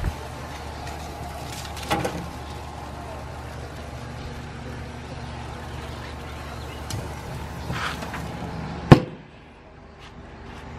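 Meat sizzling on an open Char-Griller charcoal barrel grill over a steady low hum, then one loud metal clank near the end as the barrel lid is shut, after which the sound drops quieter.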